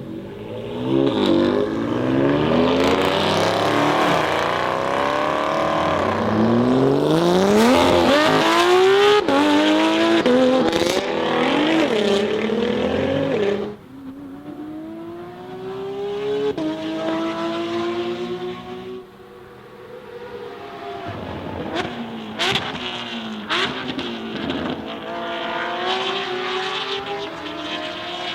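Porsche 992 GT3 RS naturally aspirated flat-six with a Soul exhaust, revving hard and accelerating through the gears. The pitch climbs and drops back at each shift and is loudest in the first half, then the sound drops away suddenly about halfway through. Quieter revs follow, with a few sharp exhaust crackles a little after two-thirds in, and the pitch climbs again near the end.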